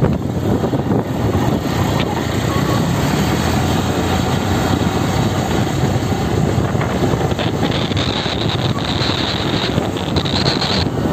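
Wind buffeting the microphone on a moving motorcycle, mixed with engine and road noise, as a steady loud rush. A higher whine joins it for a few seconds near the end.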